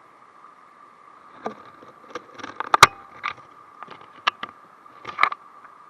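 Steady rush of spillway water, with a string of irregular close knocks and rustles as a small sunfish is handled into a landing net, the loudest knock about three seconds in.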